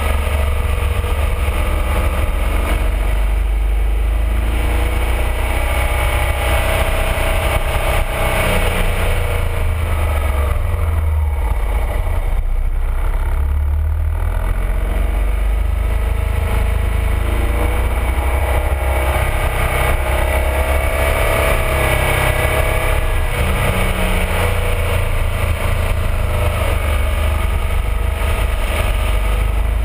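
BMW R1200RT motorcycle's boxer-twin engine running on the move, its pitch rising and falling, under a heavy low wind rumble on the fairing-mounted camera.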